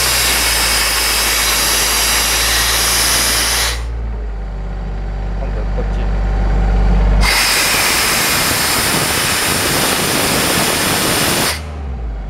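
Compressed air blasting out of the open service valve of an Airman PDS75SC engine-driven portable compressor, a loud steady rush that cuts off about four seconds in when the valve is shut, then comes back about three seconds later for another four seconds. The compressor's engine hums steadily underneath.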